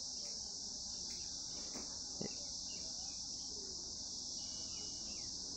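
Steady, high-pitched chorus of insects chirring without a break, with a faint knock about two seconds in.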